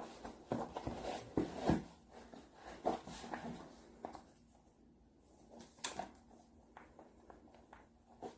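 Scattered light clicks and knocks of objects being handled in a small quiet room, busier in the first few seconds and sparser after, over a faint steady hum.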